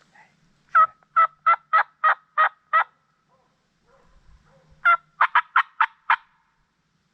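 A turkey call worked by a hunter, sounding hen turkey yelps: a run of seven evenly spaced yelps, a pause of about two seconds, then six quicker yelps.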